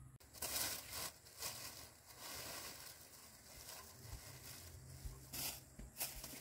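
Plastic bags rustling and crinkling in short bursts as they are handled.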